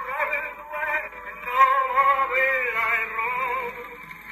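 Wind-up acoustic gramophone playing a vocal record through its horn: singing with a thin, tinny sound that has little bass or treble.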